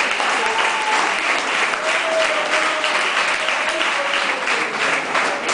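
Audience applauding steadily, dense clapping.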